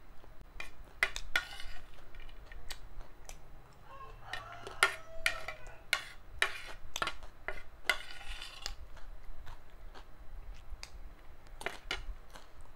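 A metal spoon clicking and scraping against a plate while chatpate is scooped up, in many sharp taps. There are two longer scrapes, about four and eight seconds in.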